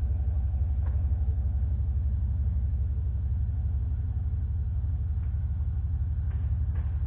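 1995 Dodge Ram's engine running steadily at idle through a custom exhaust with no mufflers or catalytic converters, only a small glasspack: a deep, even exhaust note with no revving. A couple of faint clicks near the end.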